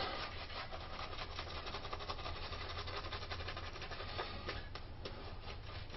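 Shaving brush working lather, a soft continuous scratchy rubbing of bristles.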